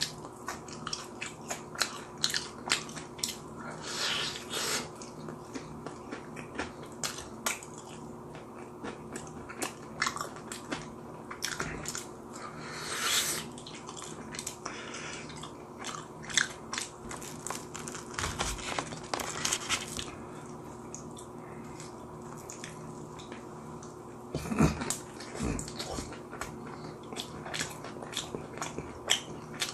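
Close-up eating sounds: biting into and chewing crispy fried chicken and pizza, with many irregular crunches and small mouth clicks and a few louder bites. A faint steady hum runs underneath.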